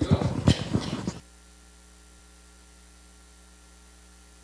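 About a second of knocks and rustles from a handheld microphone being handled. Then a steady electrical mains hum with a stack of even overtones comes through the sound system.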